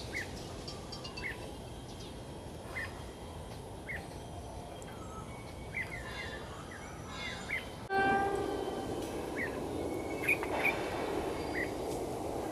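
Birds chirping sporadically; about eight seconds in, a train horn gives a short blast, and the noise of the approaching train builds after it.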